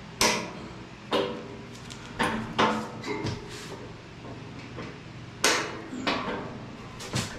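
Irregular sharp clunks and knocks from the metal pellet smoker being handled while its caster wheels are checked for locking, about seven in all, some with a short metallic ring.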